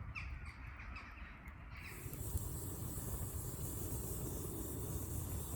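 A few short bird calls in the first two seconds over a low rumble, then a steady hiss from about two seconds in.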